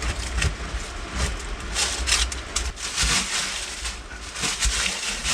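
Irregular scraping and rustling in dirt, in uneven strokes with a low rumble underneath.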